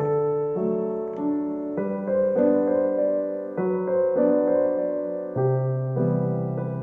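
Background piano music: gentle chords and melody notes, a new note struck every half second or so.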